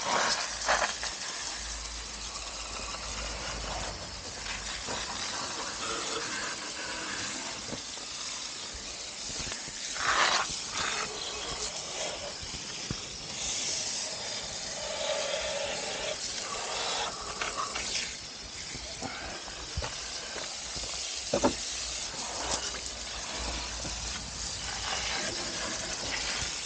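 Water spraying onto an electric unicycle as it is washed: a steady hiss, with a few brief louder splashes and knocks.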